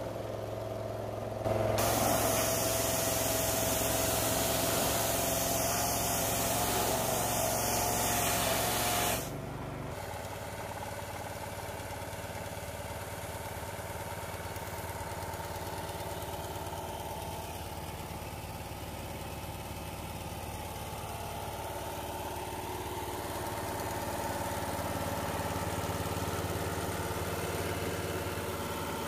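Portable pressure washer with a small air-cooled petrol engine running steadily. From about two seconds in to about nine seconds, the high-pressure water jet spraying adds a loud hiss; then the spray stops and the engine runs on alone.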